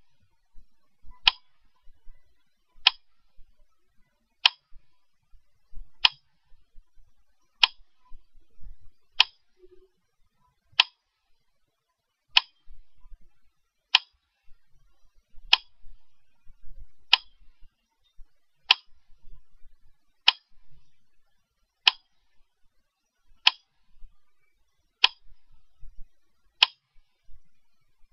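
A sharp tick repeating at an even, slow pace, about once every 1.6 seconds, like a slow metronome.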